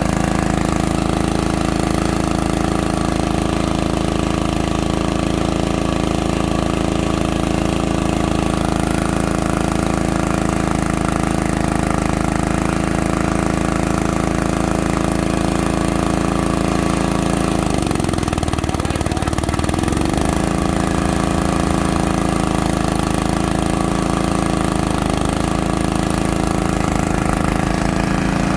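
Small engine of a core drilling machine running steadily. About two-thirds of the way through its pitch dips for a couple of seconds, then comes back up.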